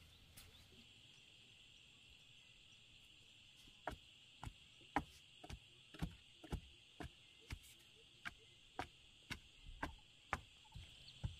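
A bamboo stake is thudded repeatedly into the garden soil beside a vine trellis, about two knocks a second, starting about four seconds in. Insects chirr faintly and steadily throughout.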